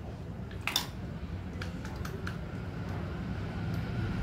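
Plastic soda-fountain valve parts being handled over a bowl of water: one sharp clack just under a second in and a few light clicks after, over a steady low hum.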